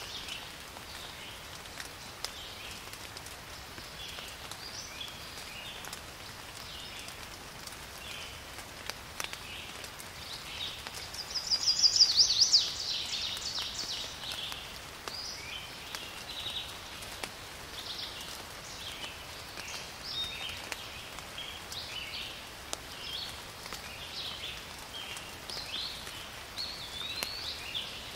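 Songbirds chirping and singing over a faint patter of rain. About eleven seconds in, one bird gives a loud, rapid trill lasting about two seconds.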